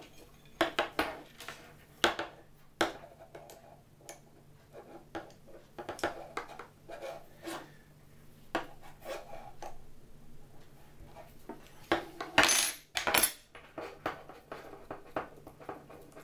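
Spanners and small metal parts clinking and knocking against a workbench as they are handled and set down, with a louder scraping clatter about twelve seconds in.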